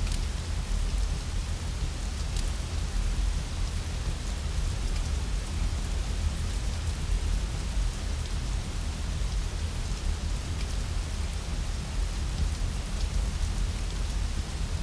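Steady rain falling, with a constant low rumble underneath and a few faint, sharp crackles from a fireplace scattered through.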